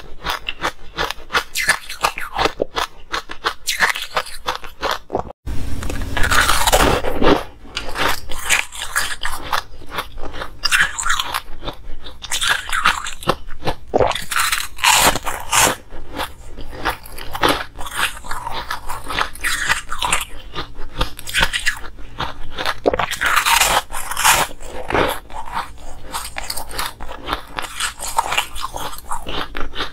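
Coloured ice being bitten and chewed close to the microphone: dense, crackling crunches that go on throughout, with a brief break about five seconds in.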